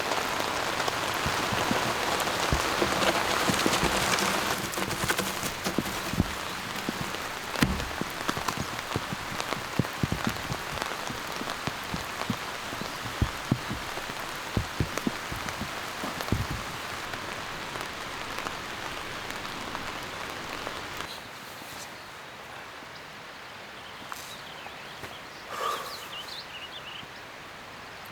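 Steady rain hiss with irregular knocks and thumps through roughly the first half. The rain noise drops somewhat about three quarters of the way through.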